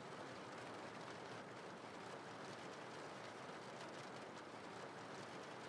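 Steady rain falling, a faint, even hiss.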